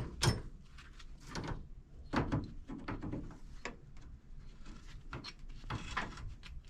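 Pipe reamer/deburring tool scraping the cut ends of copper pipe, inside and out, in a series of irregular short scraping strokes with a few knocks.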